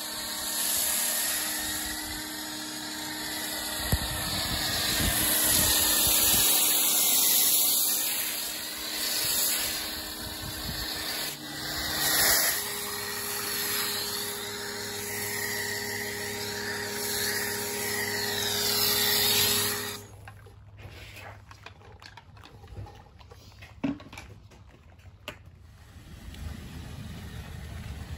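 Ryobi 1,600 PSI electric pressure washer running with a foam cannon spraying: a steady motor hum under the hiss of spray, its pitch shifting up about twelve seconds in. About twenty seconds in the motor cuts off suddenly, leaving only faint scattered clicks.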